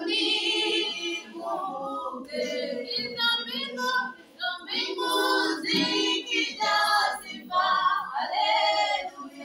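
Girls' voices singing a song unaccompanied, in phrases that come and go every second or two.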